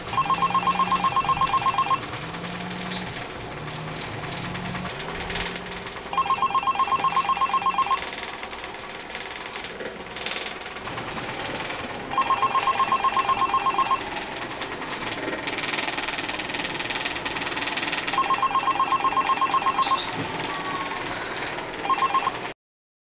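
Smartphone ringing for an incoming call: a trilling ringtone in two-second rings, one every six seconds, with the fifth ring cut short near the end.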